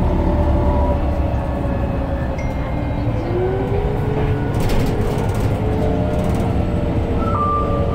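Irisbus Citelis 18 articulated bus under way, heard from inside the passenger cabin: a steady low drivetrain rumble with whining tones from the engine and Voith automatic gearbox, one slowly falling, then a new whine rising about three seconds in. A few brief rattles come about five seconds in, and a steady high beep starts near the end.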